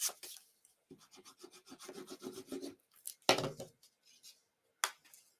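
Paper rubbing and sliding against card stock as patterned paper pieces are glued and pressed down on a wooden desk: a quick run of short scratchy strokes, then one louder knock on the desk about three seconds in and a sharp click near the end.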